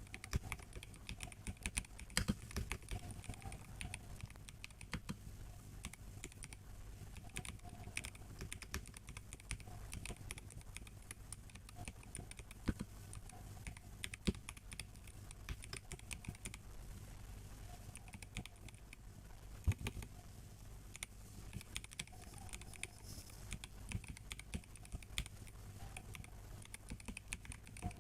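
Continuous fast typing on a MelGeek Mojo84 mechanical keyboard with a plastic case and brown tactile switches: a steady stream of key clacks with occasional louder strikes.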